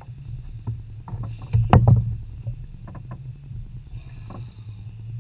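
Water slapping against the hull of a small fishing boat, with a steady low rumble, scattered knocks from handling gear on board, and one loud knock a little under two seconds in.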